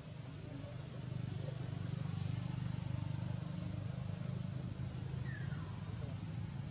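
Low engine hum of a passing motor vehicle, swelling over the first two seconds and easing off after, with a brief high falling squeak about five seconds in.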